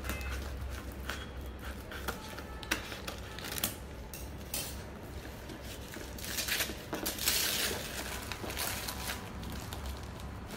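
Gift wrapping paper being snipped with scissors and torn off a parcel: irregular crinkling, rustling and crackling, densest in a longer tearing stretch about seven seconds in, over a steady low hum.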